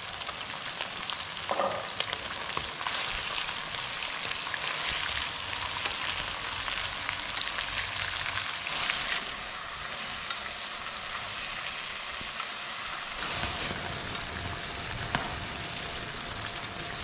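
Food sizzling in a hot pan as it is stir-fried, with a steady hiss and scattered scrapes and clicks from the spatula.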